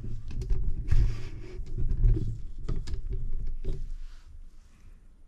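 Handling noise: a low rumble with scattered light clicks and knocks as a beam-type torque wrench turns the crankshaft in its main bearings, dying away about four seconds in.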